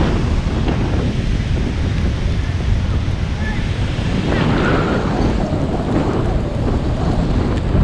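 Sea waves washing onto a beach under strong wind buffeting the microphone, a steady low rumble of noise that swells about halfway through as a wave breaks.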